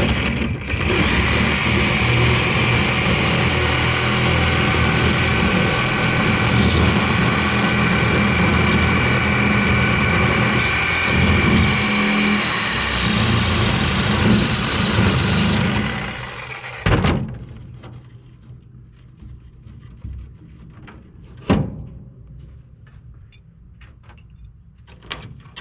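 Power tool cutting through the end of an air-conditioner coil, a loud steady cutting noise with a high whine that runs for about sixteen seconds and then stops. A single thunk follows, and a metallic knock comes a few seconds later.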